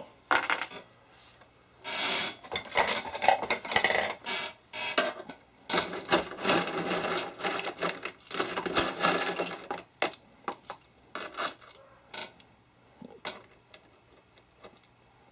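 Loose steel screws and bolts clinking and rattling together as they are handled, a dense run of rattling for several seconds, then scattered single clicks near the end.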